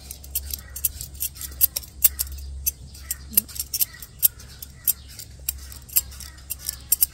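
Knife peeling a firm, unripe peach: quick, irregular scraping clicks of the blade through the skin, several a second, over a steady low hum.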